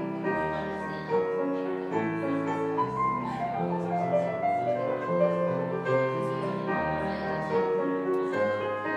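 Piano music: chords changing about once a second over held low bass notes.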